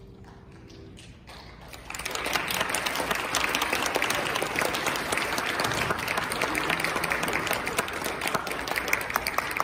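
The last held chord of three grand pianos dies away, then an audience breaks into applause about two seconds in, and the clapping stays loud and steady.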